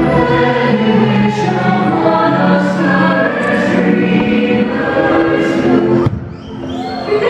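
Choir singing over an orchestral fireworks-show soundtrack. About six seconds in, the music cuts off suddenly and then swells back.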